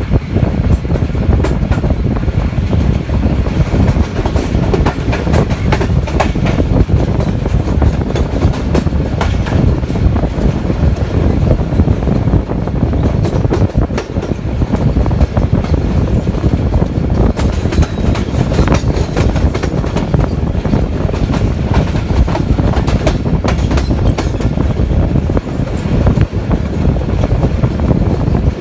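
Passenger train running at speed, heard from on board: a steady loud rumble of the carriages, with wheels clattering and knocking over the rail joints.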